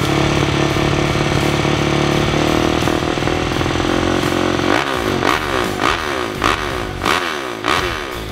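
Motocross bike engine running steadily, then revved in quick repeated throttle blips, each a rising whine, about every half second from about halfway through.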